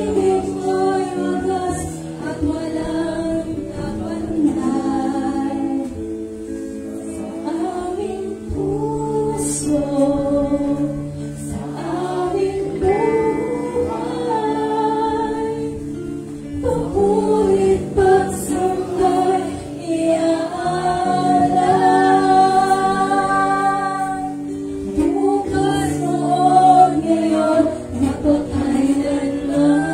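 Live worship song in Filipino: a woman sings lead into a microphone, backed by a band of drums, electric guitar and keyboard.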